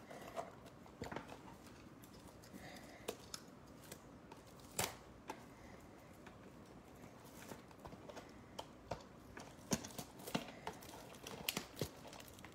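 Faint, scattered clicks and taps of a cardboard trading-card box being handled, with a sharper knock about five seconds in and a run of taps near the end.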